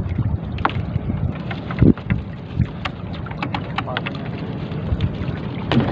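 Wind buffeting the microphone over a steady low rumble, with scattered light clicks and rustles as a nylon trammel net is hauled by hand over the boat's wooden side. A soft low thump comes about two seconds in.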